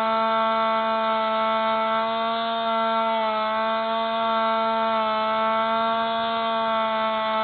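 Spy Hawk RC plane's electric motor and propeller running in flight, picked up close by the onboard camera: a steady buzzing whine that dips slightly in pitch about three seconds in and again about five seconds in, as the throttle eases.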